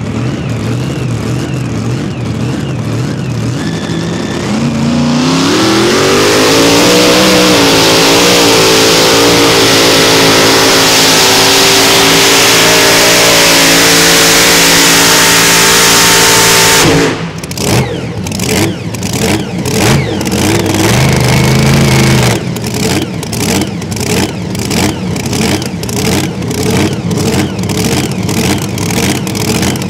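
Mini rod pulling tractor's supercharged V8 with open headers. It idles with a rumble, revs up steeply about five seconds in and holds a steady full-throttle howl through the pull. About seventeen seconds in the throttle shuts abruptly, and the engine drops back to a rough, choppy, loping idle.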